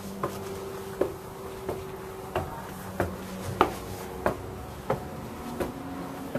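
Footsteps climbing a flight of stairs: about ten even steps, roughly one every two-thirds of a second, over a steady low hum.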